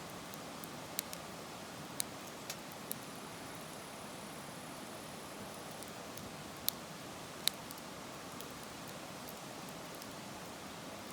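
Wood campfire burning: a steady low hiss with sharp crackles and pops at irregular intervals, about seven of them, the two loudest in the second half.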